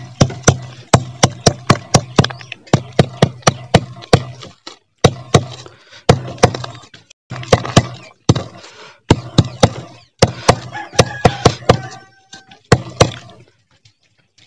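Repeated sharp knocking on a dismantled electric water heater, several strikes a second in runs with short pauses. The knocking loosens the hard salt scale built up inside.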